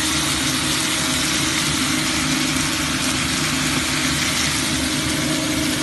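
Steady rushing hiss with a low rumble from a pot of stuffed milkfish (bangus) steaming on the stove.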